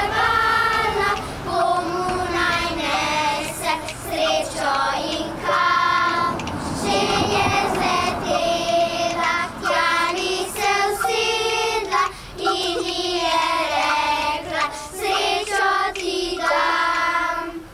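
Children's choir singing a song together, the song ending just at the close.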